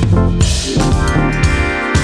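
Background music with a drum beat; from about a second in, held chords ring over it.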